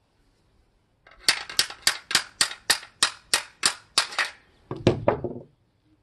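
Ratchet wrench clicking in about a dozen sharp, evenly spaced clicks, roughly three a second, as an exhaust clamp nut is tightened. A lower, quicker rattle follows near the end.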